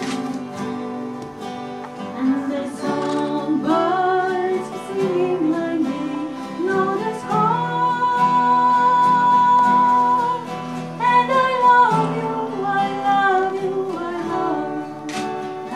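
A song sung over acoustic guitar accompaniment, the voice holding one long note in the middle.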